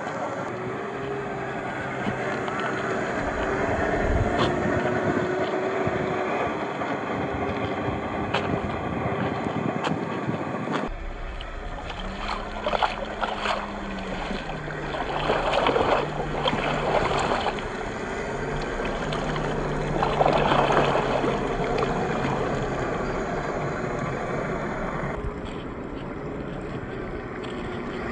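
Electric motors and gear drives of 1/10-scale RC crawler trucks with brushed 540 27T motors running, with a whine that rises and falls. Two loud rushing splashes come as a truck ploughs through a muddy puddle.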